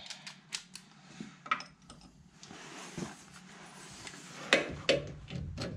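Hand tools clinking and knocking against metal while trying to reach a tight header bolt, with a few louder clanks near the end.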